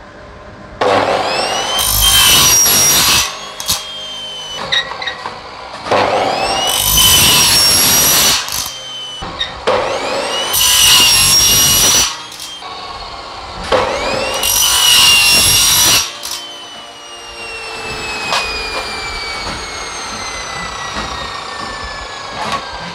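Metal chop saw with a toothed circular blade cutting through aluminium ladder profile four times, each cut about a second and a half of loud sawing. The motor's whine rises as each cut starts and falls slowly in pitch as the blade winds down after the last cut.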